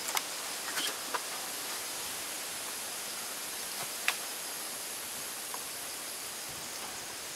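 Steady outdoor night ambience of insects chirring, with a few light clicks in the first second or so and one sharp tick about four seconds in.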